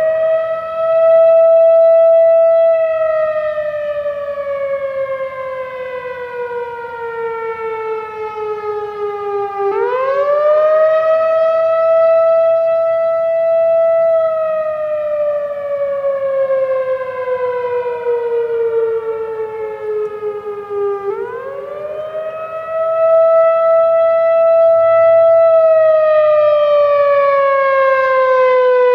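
Whelen WPS-4004 electronic outdoor warning siren sounding the attack signal on its test. It is a loud wail that climbs quickly, holds its top pitch for a few seconds, then slides slowly down before climbing again, a cycle of about eleven seconds.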